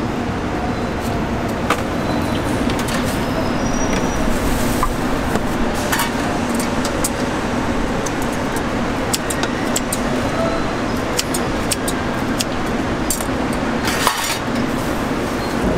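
Metal spatula and tongs clinking and scraping against a steel tteokbokki tray and serving dishes, scattered sharp clinks over a steady background of street-stall noise and hum.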